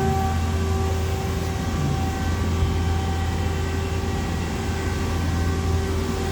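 Steady hum of powered industrial machinery: a strong low hum with several steady tones above it, unchanging throughout.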